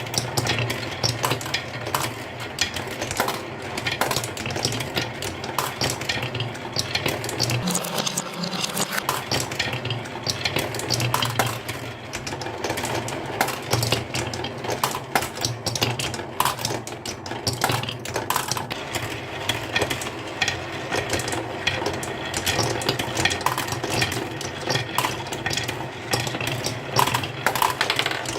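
Marbles rolling and clattering down a marble run, a continuous stream of small clicks and knocks, over a steady low hum that drops out briefly about 8 seconds in.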